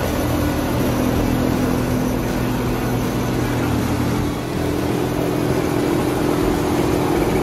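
Classic Mustang's Ford inline-six engine running steadily at a constant speed, with an even hum.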